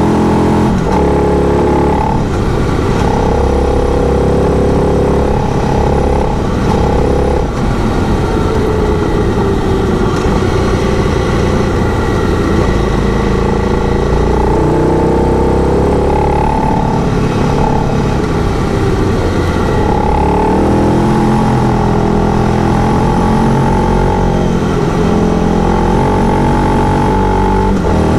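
Motorcycle engine heard from the rider's position while riding a gravel road, its pitch rising and falling repeatedly as the rider works the throttle and gears.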